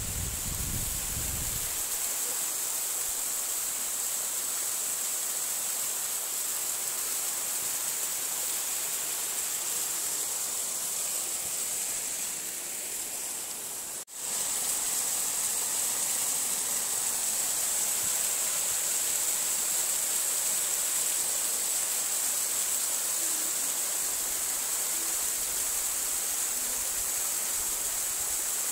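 Steady rushing of a tall, narrow waterfall pouring down a rock face. About halfway through the sound cuts out for an instant and comes straight back.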